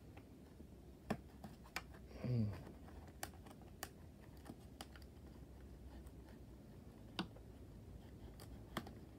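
Scissors cutting and scraping at packing tape along the edge of a cardboard box: scattered light clicks, about six over the stretch, with a brief vocal sound about two seconds in.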